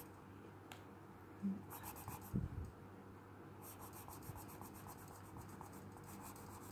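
Graphite pencil scratching across textured drawing paper in quick, repeated shading strokes, darkening the jaw outline. The strokes come in a short run and then a longer one, with a soft low bump between them.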